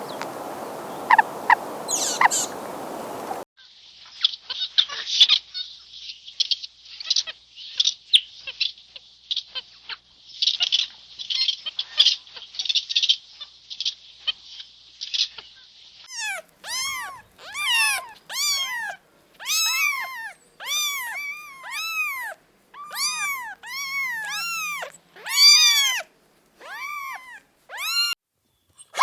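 Animal sounds in three short clips: a few chirps over noise, then dense high-pitched chirping, then a run of short, high, rising-and-falling cries, about one a second.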